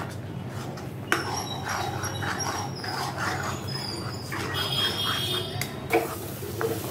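Steel spoon stirring and scraping thick cooking semolina-and-milk paste around a steel kadhai, in quick rhythmic strokes at about three a second. A thin high whine runs over it from about a second in.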